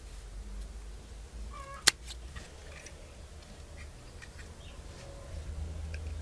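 Scissors cutting through a piece of EVA foam from a slipper: a short squeak of foam on the blades, then one sharp snip about two seconds in.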